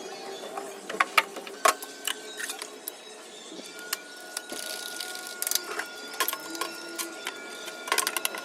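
Irregular clicks, taps and knocks of fridge shelves, drawers and containers being handled during cleaning. A faint steady high tone runs for a few seconds in the middle.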